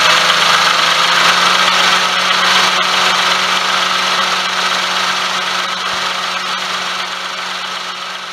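Daihatsu Tanto (L375S) engine idling with the air conditioning on, with a steady whirring noise over the engine note that comes from a worn pulley bearing. The sound slowly fades toward the end.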